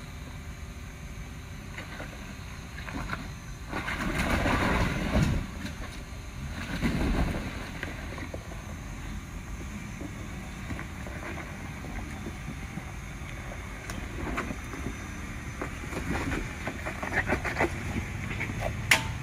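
Jeep Wrangler Rubicon engine running at crawling speed as the Jeep climbs a rocky trail, with louder stretches about four and seven seconds in. Near the end, sharp clicks and knocks come from the tyres crunching over rock as it passes close by.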